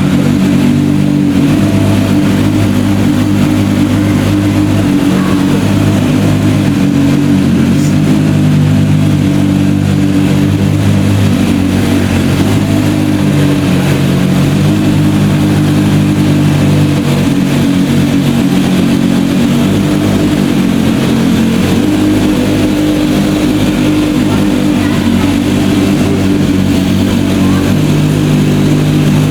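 Bugatti EB110's quad-turbo V12 running loudly on the move at fairly steady revs, its note stepping to a new pitch a few times.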